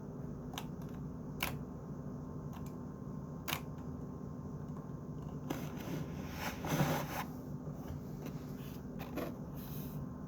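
Computer keyboard giving scattered single key clicks, a second or more apart, rather than continuous typing. A longer rustling noise comes a little past the middle, over a low steady hum.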